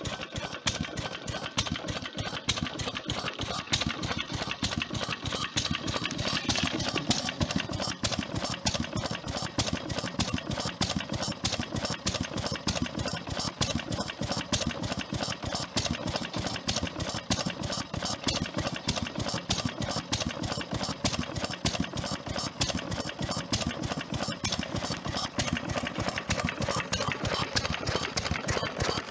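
Vintage single-cylinder stationary engine running steadily with an even, rapid beat of firing strokes.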